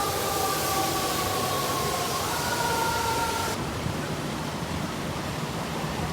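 An emergency-vehicle siren sounds two steady tones that slowly fall in pitch and step back up once, over a steady roar of city traffic. The siren cuts off abruptly a little past halfway, leaving the traffic noise.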